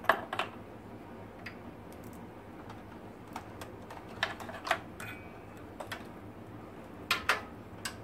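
Plastic clicks and rattles of SATA power and data cable connectors being unplugged and handled inside a desktop PC case. The clicks come in short scattered clusters, loudest at the very start and again about seven seconds in.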